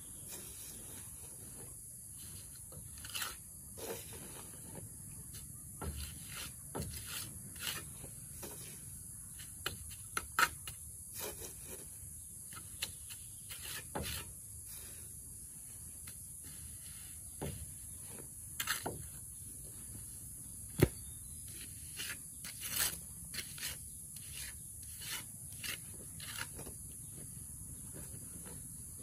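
Irregular scraping, rubbing and knocking of hand building work, with a few sharp clicks, the loudest about 21 seconds in, over a steady high-pitched hiss.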